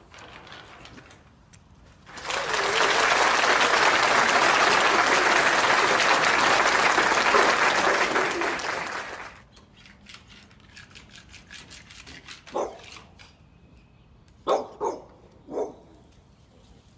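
A burst of applause, about seven seconds long, that cuts in and out abruptly like a dropped-in sound effect. It is followed by a few short, soft rustles of transfer tape being pressed onto the vinyl lettering.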